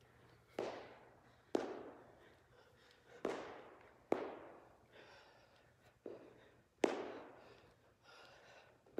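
Feet landing on a rubber gym floor during squats with forward kicks: about six sharp thuds, some in pairs about a second apart, each ringing on briefly in the echoing room.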